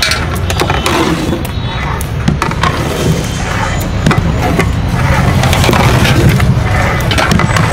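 A long metal paddle scrapes and knocks irregularly against a large metal pot as thick harees is stirred and beaten, with steady road traffic noise underneath.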